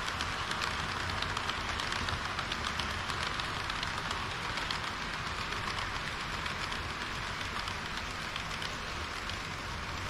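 HO-scale model trains, a KiHa 40 series railcar and a train of tank wagons, running past on sectional track: a steady rattle of metal wheels with many small clicks over the rail joints, easing off slightly as the tank wagons move away.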